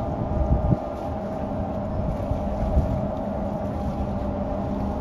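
Large ship's engines running with a steady drone and low rumble, with wind buffeting the microphone.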